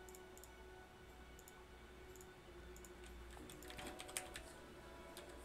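Faint typing and clicking on a computer keyboard, sparse at first, with a quicker run of louder clicks about four seconds in, over a low steady hum.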